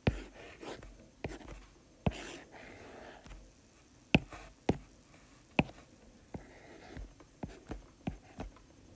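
Stylus tapping and sliding on a tablet screen while drawing lines and boxes: sharp, irregular taps about every half second to a second, with faint scratching strokes between them.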